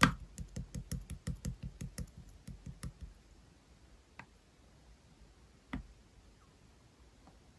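Slime being pressed and played with by hand, giving a quick run of sharp clicky pops about three a second, then two single pops later on.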